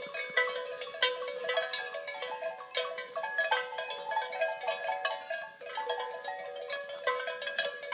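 Cow bells on a grazing herd of cows, ringing at many different pitches, with strikes overlapping irregularly as the animals move their heads to feed.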